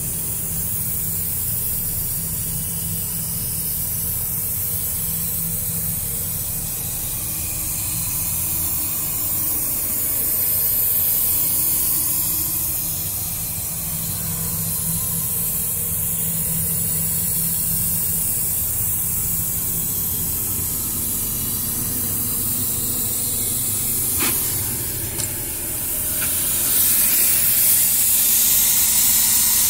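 A steady hiss over a low steady hum, with the hiss getting louder for the last few seconds.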